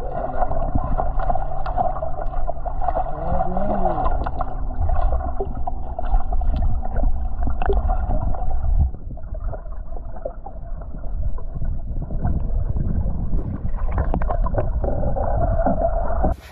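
Muffled water noise and the low hum of a boat motor, heard through a camera held underwater, with a short rise and fall in the motor's pitch about four seconds in; the level drops about halfway through.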